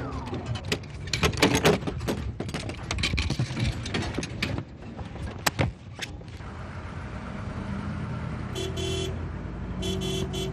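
A rapid run of clattering, banging and sharp knocks that ends about six seconds in, followed by a low steady hum and short electronic car-horn beeps near the end, like a car being locked by remote.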